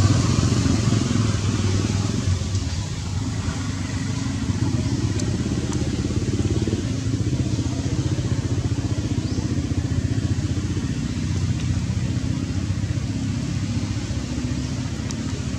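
A motor engine running steadily with a low, even drone, a little louder at the start.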